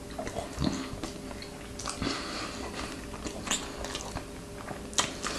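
A person chewing food close to the microphone, with soft, irregular mouth clicks and smacks.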